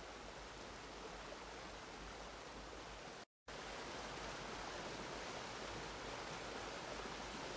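Steady rushing water of a waterfall soundscape, an even hiss with no distinct events. It cuts out completely for a moment a little over three seconds in, then resumes slightly louder.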